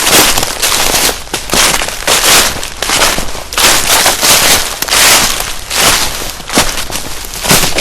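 Footsteps crunching through dry fallen leaves and twigs on a forest floor, one crunch per step at a steady walking pace of roughly a step a second.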